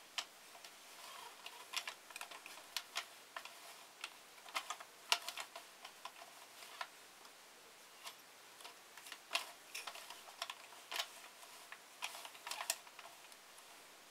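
Light, irregular plastic clicking from a Sentro 22-needle knitting machine as its crank is turned slowly and its needles are worked by hand during cast-on. The clicks come in uneven clusters with short pauses between them.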